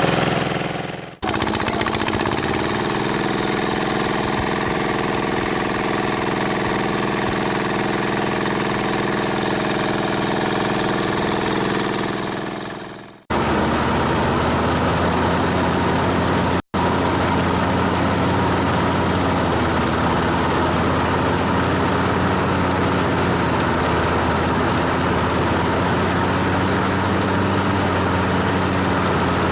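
Engine of a farm machine running at a steady speed. The sound drops out briefly about a second in and again about thirteen seconds in, then carries on at a slightly different pitch.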